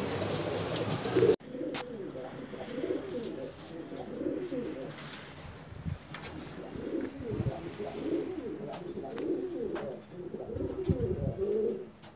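Fancy pigeons cooing: repeated low, warbling coos that overlap one another. The sound breaks off abruptly about a second in, then the cooing picks up again with a few faint taps.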